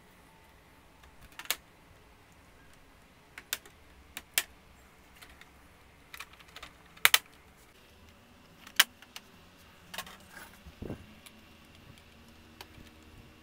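Plastic snap-fit clips of an all-in-one PC's rear housing clicking loose one by one as the case is pried apart from the display panel: scattered sharp clicks and snaps, the loudest a double snap about seven seconds in and another near nine seconds. A duller knock comes near eleven seconds.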